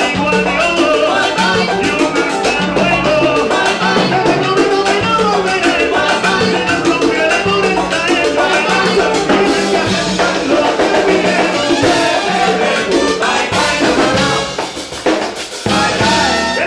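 Live salsa band playing: male voices singing over trumpet, drums and hand percussion. The music dips briefly near the end.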